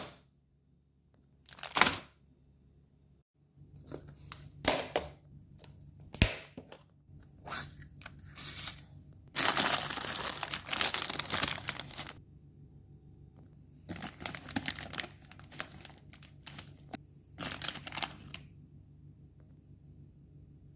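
Crinkling and tearing sounds in a series of short bursts, with one longer continuous stretch of about two and a half seconds near the middle.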